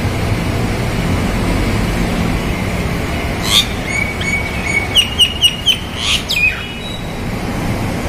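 A myna calling over a steady low traffic rumble: a harsh note about three and a half seconds in, a held whistle, then a quick run of five short rising chirps and a second harsh note.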